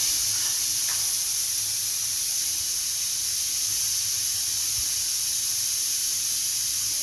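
Steam hissing steadily out of a pressure cooker's vent with its whistle weight lifted, letting the pressure off after cooking.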